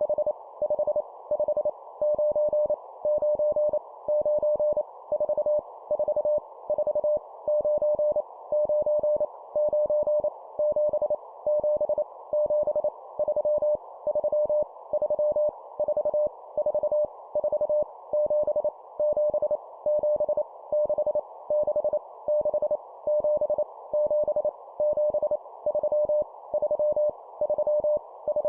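Morse code sidetone, a single steady beep near 600 Hz keyed in quick dots and dashes at 25 words per minute, sending random numbers for copy practice, with a soft hiss between the elements.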